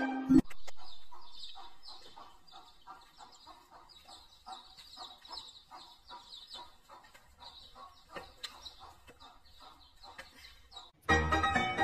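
A flock of ducklings peeping: many quick, high chirps overlapping, fairly faint. Music cuts off about half a second in and comes back in near the end.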